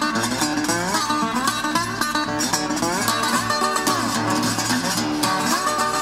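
Instrumental passage of a song led by guitar, its notes sliding and bending in pitch over a steady bass.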